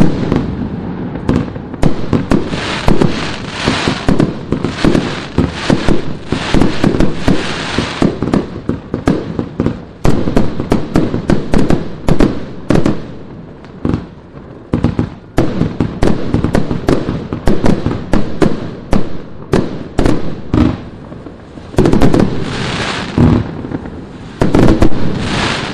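Vivid Pyrotechnics 'Bloodshot' 139-shot, 30mm-tube compound firework cake firing in rapid succession: a dense run of launch thumps and shell bursts, several a second. There are a few short lulls, and a very loud burst comes near the end.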